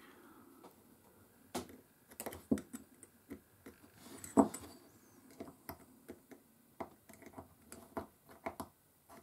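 Scattered small metallic clicks and taps, the loudest about four and a half seconds in, as the wire retaining clip is worked into its groove inside the spool of a Shakespeare 2700 spinning reel, over the stack of cork and metal drag washers. A light click is what shows that the clip is seated.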